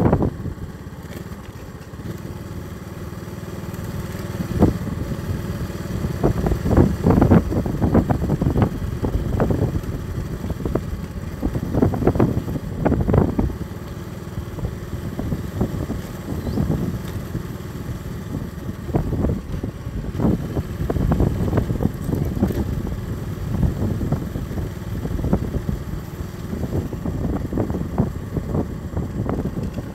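Small motorcycle engine running while riding along a road, with uneven rushing wind noise on the microphone that swells and eases.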